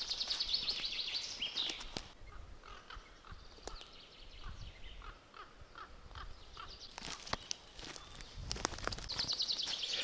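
Songbirds singing: a fast, falling high trill in the first two seconds, then a run of repeated mid-pitched notes. Footsteps crunch dry pine needles and snap twigs, with several sharp cracks in the last few seconds.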